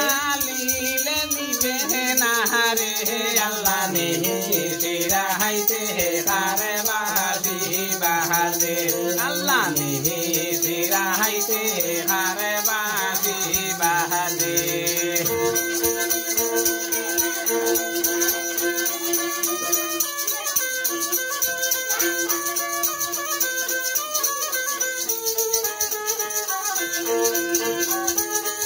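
Violin bowed in a Bengali Baul folk tune: sliding, ornamented melodic phrases for roughly the first half, then long held notes. A rattle-like percussion keeps a fast, steady beat throughout.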